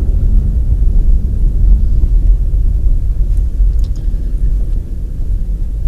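Car driving on a snow-packed street, heard from inside the cabin: a steady low rumble of engine and tyres, with a few faint clicks or rattles around the middle.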